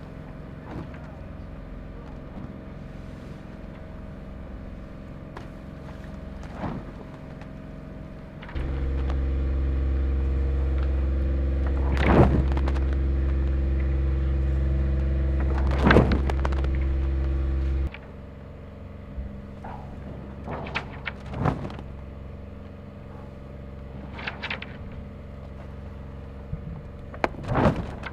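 Onboard machinery of a racing sailboat: a steady mechanical hum, with a motor that switches on about eight seconds in, runs with a loud low drone for about nine seconds and cuts off suddenly. Several sharp knocks sound over it.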